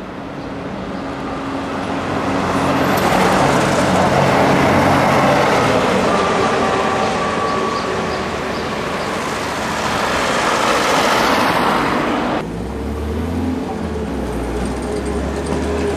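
Street traffic with a city bus's engine running as it drives past, the noise swelling and easing. About twelve seconds in the sound changes suddenly to a deep, steady engine rumble from a bus close by.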